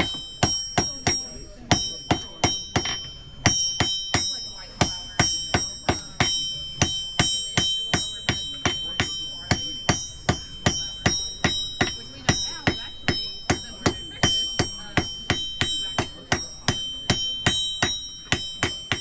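Blacksmith's hammer striking iron on an anvil in a steady rhythm of about three blows a second. Each blow rings, while a nail is drawn out by hand.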